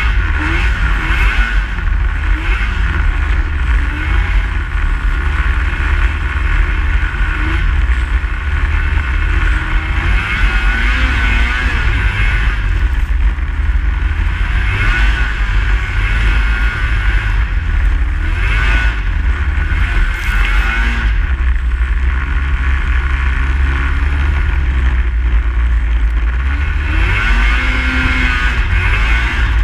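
Snowmobile engine running under way, its pitch rising and falling with the throttle over a heavy steady low rumble.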